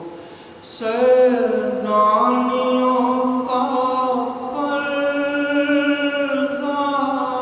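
A man chanting an unaccompanied Muharram elegy into a microphone, coming in about a second in after a brief lull and holding long, drawn-out notes.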